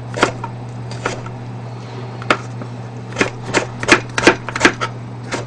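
Kitchen knife slicing a cucumber on a plastic cutting board: separate knife taps, sparse at first, then quickening to about three a second in the second half.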